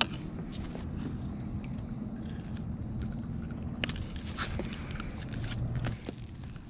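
Light clicks and scrapes of a crankbait and its treble hooks being worked free of a largemouth bass's mouth by hand, over a steady low rumble.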